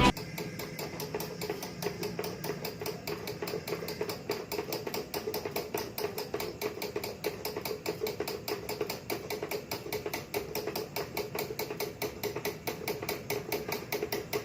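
A small machine running with a rapid, even mechanical ticking, several strokes a second, over a steady hum.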